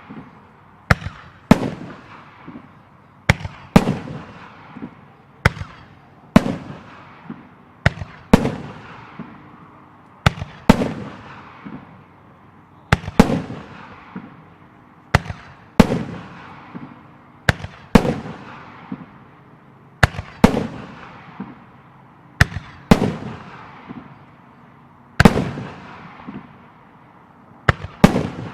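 Aerial firework shells being fired and bursting: sharp bangs every second or two, often in quick pairs, each followed by a long fading echo.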